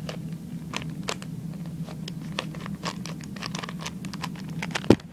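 3x3 Rubik's cube being turned quickly by hand: a run of small plastic clicks and scrapes as the layers snap round, coming faster in the second half, with one louder clack near the end.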